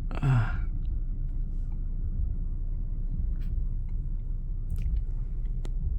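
Low steady rumble of a car idling, heard from inside the cabin, with a brief falling vocal sound right at the start and a few faint clicks.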